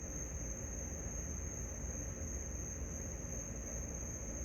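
Crickets trilling steadily at night, a continuous high-pitched tone with no breaks, over a faint low rumble.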